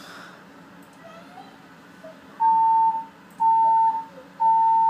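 Fire alarm sounding three loud, steady, high beeps about a second apart, starting about halfway in: the temporal-three evacuation signal that alternates with a recorded voice telling occupants to evacuate.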